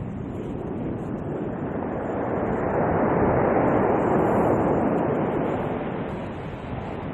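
Sea surf on a pebble beach: one wave breaks and washes in, swelling to its loudest in the middle and then fading.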